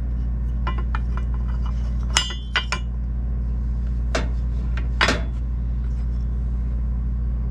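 Pieces of teak trim being handled and set down among tools: a few light wooden knocks and clicks, with a sharp metallic clink a little over two seconds in, over a steady low hum.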